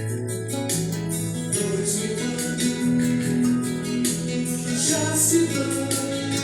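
Gospel song with singing over guitar accompaniment and a steady beat.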